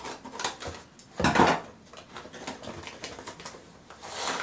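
Hands unwrapping packaging from a boxed plant: irregular rustling and clicking, with one louder rustle about a second in.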